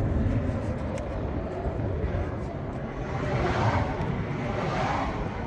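Road traffic going past: a vehicle's tyre and engine noise swells and fades in the second half, over a steady low rumble.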